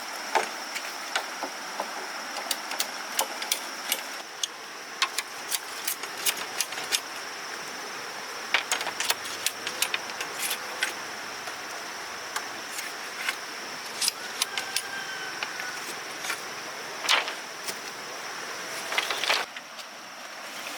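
Bamboo being cut and handled with a knife: irregular sharp clicks and knocks, with heavier knocks near the end. A steady high insect drone runs underneath.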